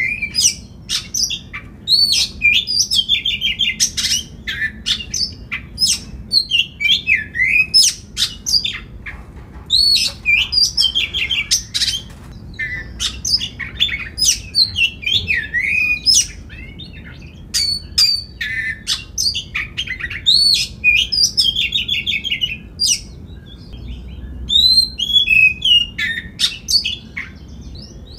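Oriental magpie-robin singing in full voice: a fast, varied run of whistles, rising and falling slurs, rapid trills and sharp clicking notes, delivered in short phrases with brief pauses between them.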